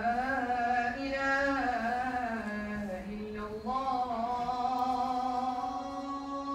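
A man chanting solo in the Islamic religious style: long, ornamented notes held in two phrases, with a short breath between them a little past three seconds in.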